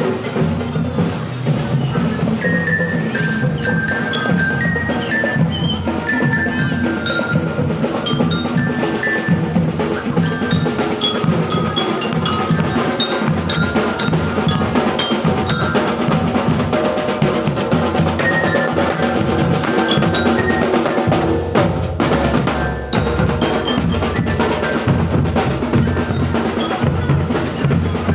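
Marching drum band playing: a bright glockenspiel-like bell lyre carries the melody over bass drum and other drums.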